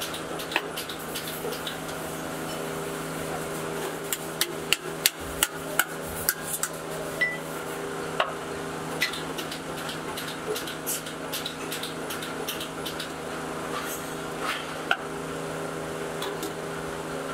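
Sharp, irregular metal clinks and knocks as a steel flange plate is fitted and tapped onto a sheet-steel oval muffler tube. There is a quick run of them about four to six seconds in and more near fifteen seconds, over a steady, many-toned hum.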